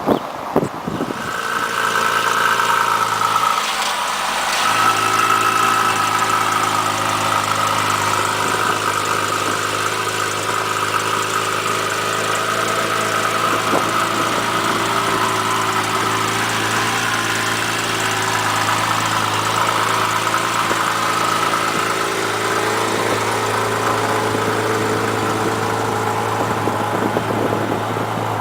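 Porsche car engine running steadily at nearly constant revs, with a brief dip about four seconds in.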